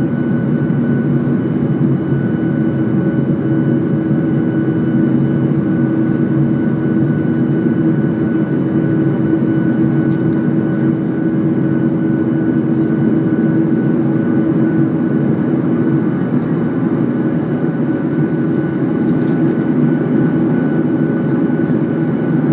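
Boeing 737-900ER cabin noise during the climb after takeoff, heard at a window seat over the wing: the CFM56-7B engines' steady drone mixed with airflow rumble, with a few steady whining tones on top. A low hum within it eases about two-thirds of the way through.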